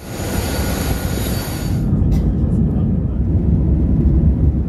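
Jet airliner noise: a loud hiss with steady high-pitched whine tones for about the first two seconds, which cut off suddenly, leaving a steady low rumble.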